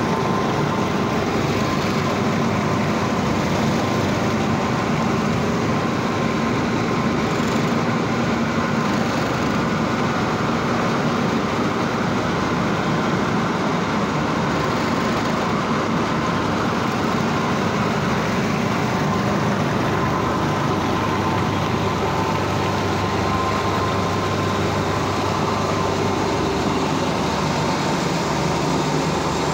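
Industrial machinery at a boiler's wet scrubber plant running steadily: an unbroken loud drone with a faint steady whine, without changes.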